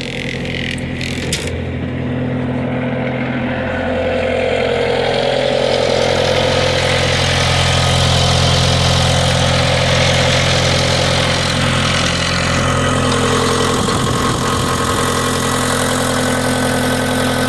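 Bobcat S250 skid steer's diesel engine running steadily at a raised idle just after a cold start. It grows a little louder over the first few seconds, then holds an even hum.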